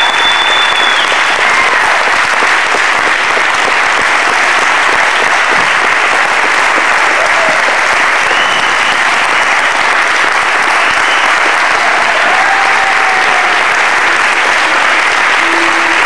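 A large crowd applauding, dense and steady clapping that does not let up, with a few brief shouts or whistles standing out over it now and then.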